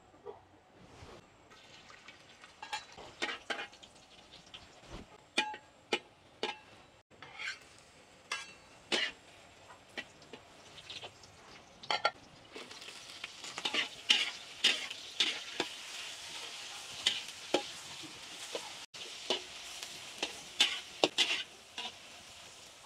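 Catfish stir-frying in a hot pan: a spatula knocks and scrapes against the pan over a frying sizzle. The knocks are sparse at first; about halfway through the sizzle grows louder and the strokes come quicker.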